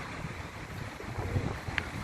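Wind buffeting the microphone in uneven low gusts over a steady outdoor hiss, with one brief high chirp near the end.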